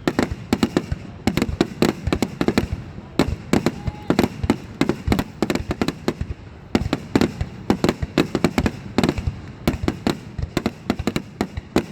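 Fireworks show finale: aerial shells bursting in rapid, irregular succession, several bangs a second with crackling between them, pausing briefly about halfway through.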